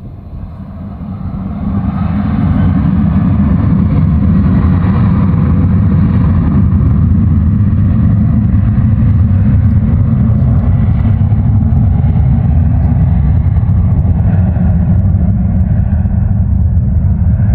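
Boeing 737 jet engines running at high thrust, a loud low rumble with a rushing hiss above it. It swells over the first two seconds and then holds steady.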